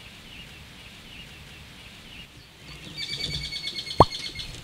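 Birds chirping faintly in the background, then from about three seconds in a high, ringing comedic sound effect. About four seconds in comes a quick, loud dropping 'bloop' tone.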